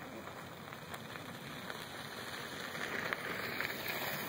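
Steady hiss of outdoor background noise with a few faint clicks. It grows a little louder and brighter about three seconds in.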